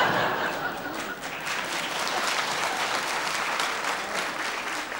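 Theatre audience applauding: a dense patter of many hands clapping, loudest at the start and then holding steady a little lower.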